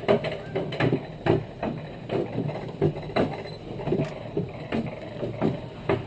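Rail-guided rainforest bobsled rolling down its track, clacking over the metal rails about two or three times a second over a steady rushing noise.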